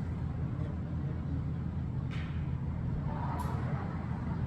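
Steady low mechanical drone of a running engine or machine, with a couple of faint clicks about two and three and a half seconds in.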